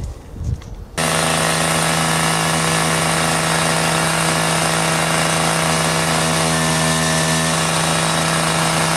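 Petrol disc cutter (cut-off saw) held at high, steady revs as its blade cuts through brickwork and very hard cement mortar. It starts abruptly about a second in.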